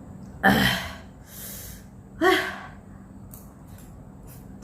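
A woman gasping out loud twice, with a breathy intake between, as she reacts to the burning heat of ghost-pepper noodles in her mouth.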